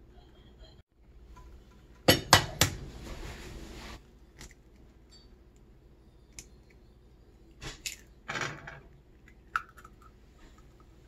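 An egg cracked against the rim of a nonstick frying pan: three sharp taps about two seconds in, then later a cluster of small clicks and a brief rustle as the shell is pulled apart and the egg slips into the shallow liquid in the pan.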